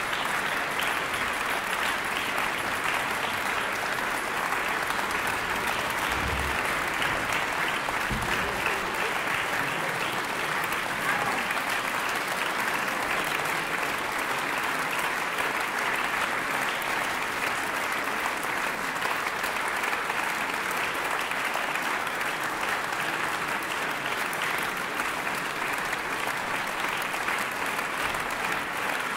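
Audience applauding steadily after an orchestral performance, a continuous wash of clapping.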